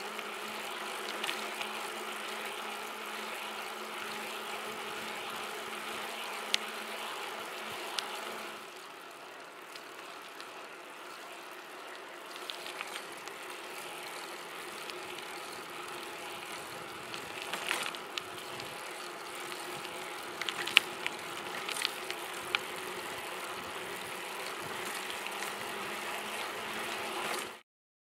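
Mountain bike riding on asphalt: a steady rolling hum of tyres and drivetrain, broken by scattered sharp clicks. The sound drops a little about eight seconds in and cuts off just before the end.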